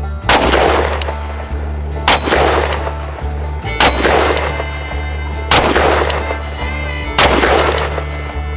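Five shots from a Ruger Blackhawk single-action revolver in .30 Carbine, fired about one every 1.7 seconds, each sharp crack trailing off in a short echo. Guitar background music plays underneath.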